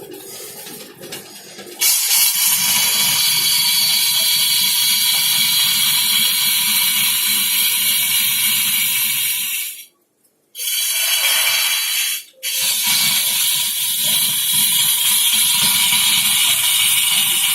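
Wood lathe running with a turning tool cutting into the spinning wood: a loud, steady hiss over a low rumble that starts about two seconds in and cuts out for about a second near the middle, and again briefly soon after.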